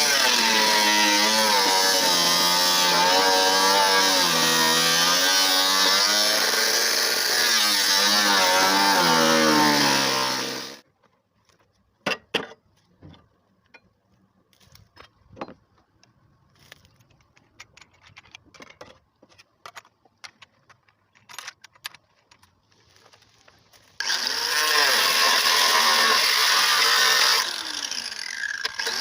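Handheld electric power tool running under load, its pitch wavering, then winding down and stopping about 11 seconds in. Scattered clicks and knocks of handling follow, and the tool starts up again about 24 seconds in.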